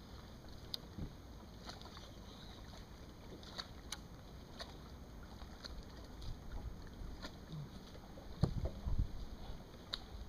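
Water lapping at a small fishing boat's hull, with scattered light clicks throughout and a few low thumps about eight and a half seconds in.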